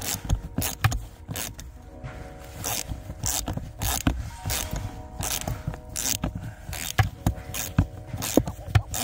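Repeated short scraping strokes in caked, dried mud, two to three a second, under a steady background music track.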